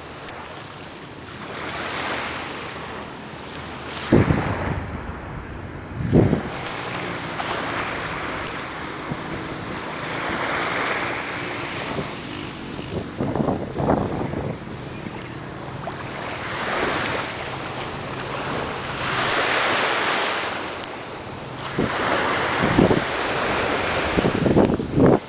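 Sea surf washing in slow swells that rise and fade every few seconds, with wind hitting the microphone in several sudden loud gusts.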